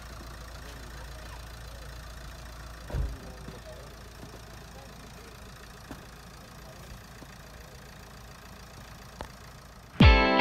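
Steady low outdoor background rumble with a single dull thump about three seconds in; music with plucked guitar and heavy low beats cuts in at the very end.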